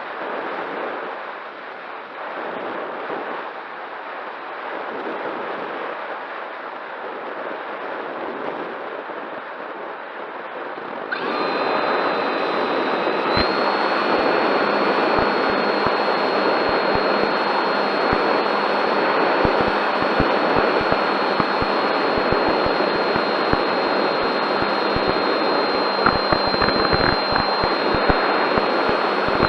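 Wind rushing over the microphone. About a third of the way in it jumps louder, a steady high-pitched whine joins it, and crackling buffets run through the rest.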